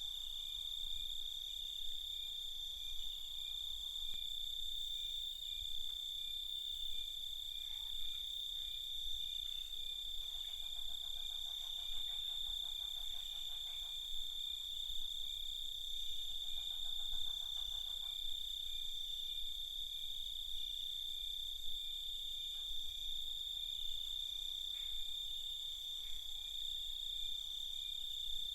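Crickets trilling steadily in a night chorus, one high unbroken tone. Twice, around the middle, a lower, rapidly pulsing call joins in for a few seconds.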